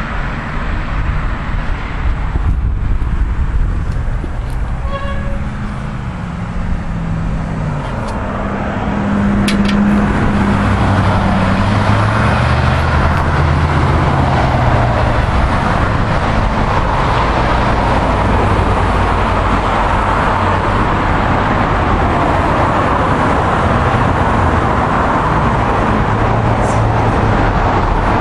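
Steady road traffic noise with engines of passing vehicles rising and falling in pitch, growing louder about nine seconds in.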